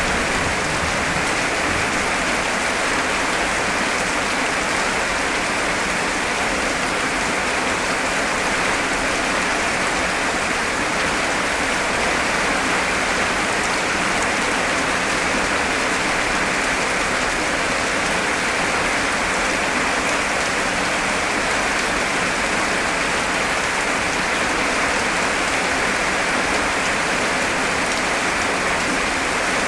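Heavy rain hammering down steadily, a dense, even hiss of drops with no let-up.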